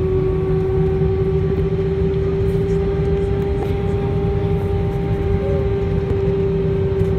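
Cabin sound of an Airbus A320-232 taxiing onto the runway, its IAE V2500 engines at low power: a steady hum with a constant tone over a low rumble.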